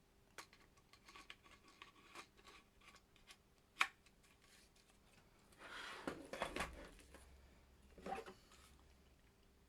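Light clicks and plastic scraping as miniatures are handled in a 3D-printed holder tray. There is a sharper click about four seconds in, a longer rubbing scrape around six seconds and a shorter one near eight.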